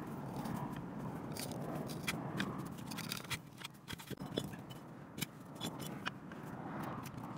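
Hand auger drill bit turned by a wooden T-handle, boring into a log: a steady scraping of the bit cutting wood, broken by many sharp clicks and cracks.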